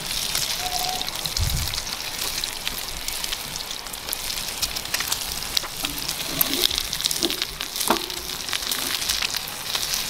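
Sausages and bacon sizzling over a campfire: a steady frying hiss with frequent sharp crackles and pops as the fat spits. A single dull thump about a second and a half in.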